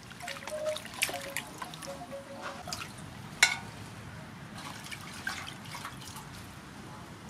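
Water splashing and dripping as hands wash lettuce, chilies and limes in a metal basin of water, with one sharp knock about three and a half seconds in. After that, fainter drips and handling as the wet vegetables are set into a bamboo basket.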